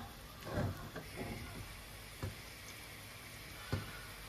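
Chopped onion sizzling softly in hot oil in a nonstick wok, with a few light knocks of a wooden spatula against the pan as it is stirred.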